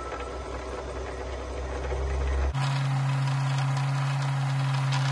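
Kenmore 385-series sewing machine's motor running to wind a bobbin, a steady hum that jumps suddenly to a higher, louder pitch about halfway through as the motor speeds up.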